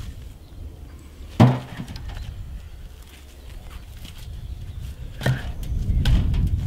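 Short firewood logs tossed into a wheelbarrow, knocking on each other: one loud wooden clunk about a second and a half in, another just past five seconds, and fainter knocks between.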